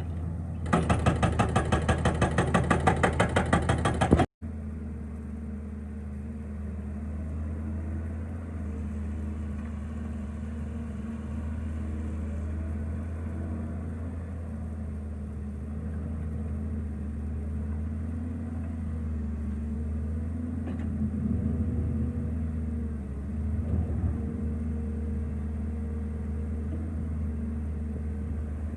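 Excavator-mounted hydraulic breaker hammering rock in a fast, even run of blows, about four a second, for roughly three and a half seconds. The sound then cuts off suddenly, and the excavator's diesel engine runs steadily for the rest of the time.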